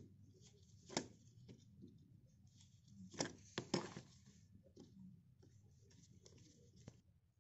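Faint handling sounds of a screwdriver working on a small antique brass binocular: soft scraping and rubbing, with a light click about a second in and two sharper metal knocks a little after three seconds in.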